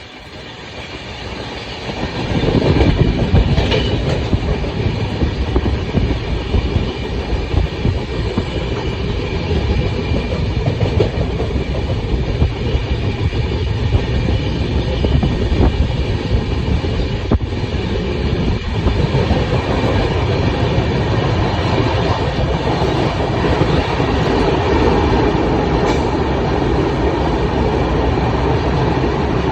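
Indian Railways train running along the line, a steady rumble of wheels on rails with some clickety-clack. It swells up over the first two seconds, then holds steady.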